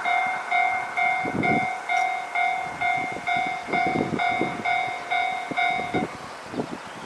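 Japanese railroad crossing's electronic warning bell ringing in an even pulse about twice a second, cutting off about six seconds in. Under it, the low rumble and wheel clatter of a passing train fade away.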